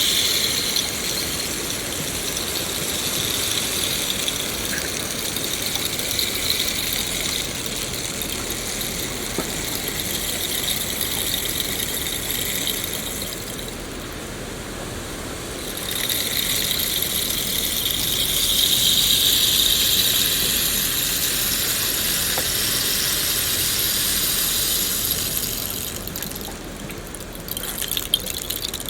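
Rain falling: a dense, high hiss that swells and eases, dropping briefly about halfway through and again near the end.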